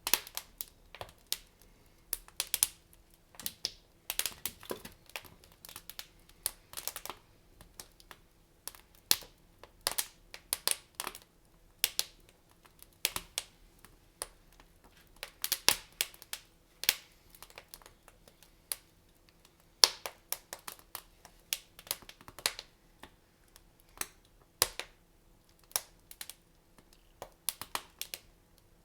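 Wood fire crackling in a fireplace: irregular sharp pops and snaps, often a few each second, some much louder than others.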